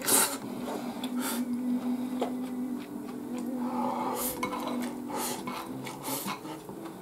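Tableware clinking and scraping against dishes during a meal, in about five short bursts a second or so apart, over a steady low hum.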